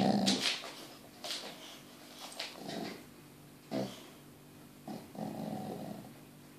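Boxer dog grumbling and whining in a series of short low vocal sounds, louder at the start, with a longer grumble near the end: the dog asking to be let up onto the sofa.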